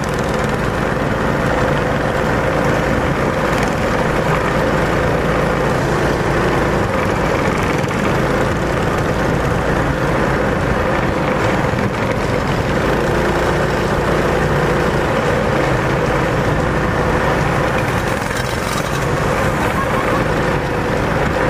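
Mini bike's small engine running steadily under way at cruising speed, with a steady drone, mixed with road and wind noise.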